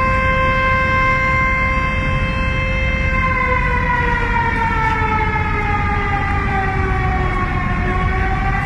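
A siren sounding one steady pitched tone that, a few seconds in, slowly slides down in pitch and near the end begins to climb again, over a steady low noise.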